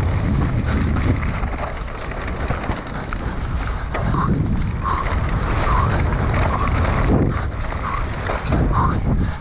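Wind buffeting an action camera's microphone over the rumble of an electric mountain bike ridden fast down a rough trail. From about halfway through, a short sound repeats a little faster than once a second.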